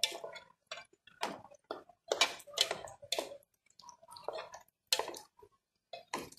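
A cooking utensil tapping and knocking against a pan as okra is stirred and sautéed. It makes a dozen or so short, irregular clicks and knocks.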